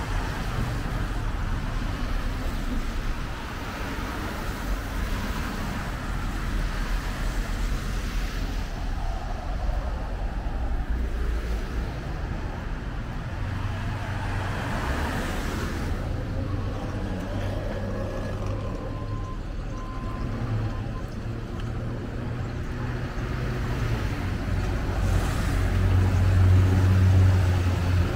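Street traffic on a wet road: cars passing with tyres hissing on the wet pavement over a steady low rumble, getting louder near the end.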